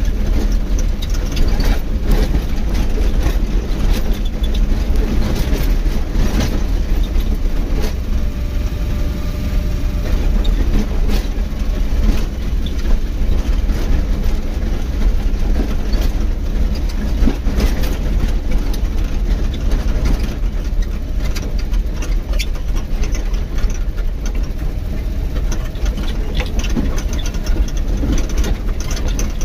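Steady engine and road rumble of a vehicle driving over a rough dirt road, with frequent short knocks and rattles from the bumps.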